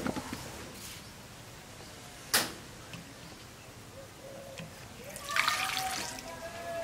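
A single sharp knock about two seconds in. About five seconds in comes a splash of water poured from a clay jug onto tomatoes in a clay bowl, lasting a second or so.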